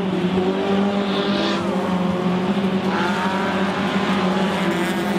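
Engines of several small hatchback stock cars racing on a dirt oval, revving hard with their pitches rising and falling as the cars accelerate and pass.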